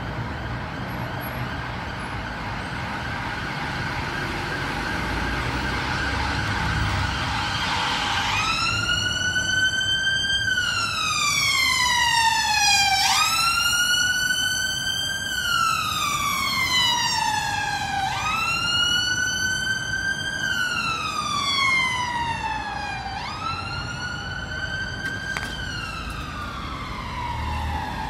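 Emergency vehicle siren in a slow wail, starting about eight seconds in: each cycle jumps up in pitch and then glides slowly down, repeating about every five seconds, over steady road traffic.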